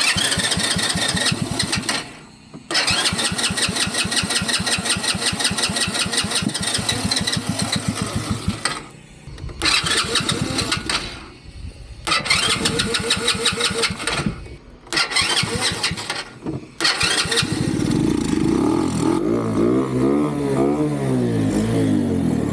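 The mini Jeep's small engine being cranked in about six separate tries with short pauses between, then catching about 17 seconds in and running with its speed rising and falling unevenly. It is hard to restart after stalling, a fuel problem the owners put down to the carburetor float height.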